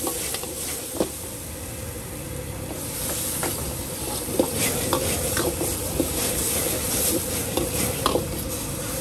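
Stir-frying in a wok: a metal spatula clacking and scraping against the pan at an irregular pace while food sizzles, over a steady hum.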